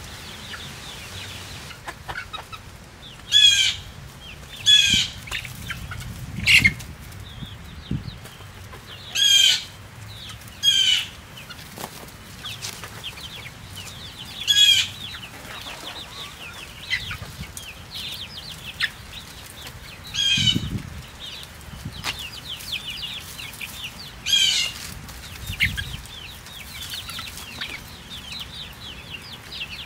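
Chickens calling as they feed: about eight loud, short, high calls spread through, over a constant run of soft, quick high chirps and clucks.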